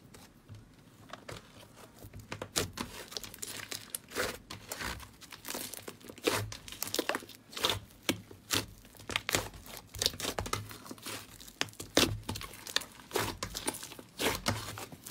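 Thick slime being kneaded and squeezed by hand, giving off a dense run of irregular sharp crackles and pops as trapped air bursts. Faint at first, the crackling grows loud about two seconds in.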